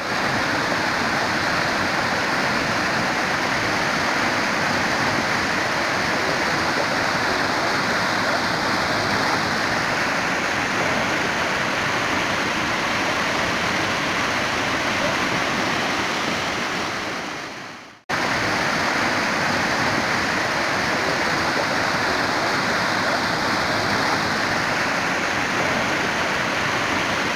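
A muddy, flood-swollen river rushing over rocky rapids in a steady, even rush of water. About two-thirds of the way through it fades out and then cuts straight back in.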